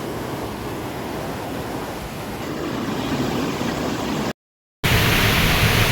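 Steady rushing noise of a waterfall. About four seconds in it cuts out completely for half a second, then comes back a little louder.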